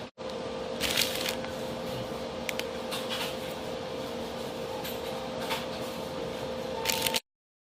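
Steady machine hum with a constant tone underneath, broken by a few short rustling or clattering sounds, cutting off abruptly near the end.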